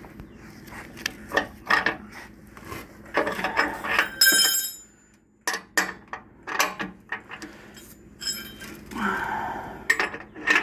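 Hand tools and metal wheel hardware clinking and knocking in a string of sharp strikes, one with a ringing metallic tone about four seconds in and a longer scraping sound near the end, as a motorcycle's front wheel is refitted.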